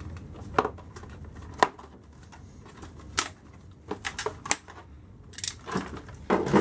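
Clicks and rustling of plastic and cardboard packaging being handled as an RC truck is worked loose from its box. A few single sharp clicks come about a second apart, then a denser run of clicks and rustle near the end.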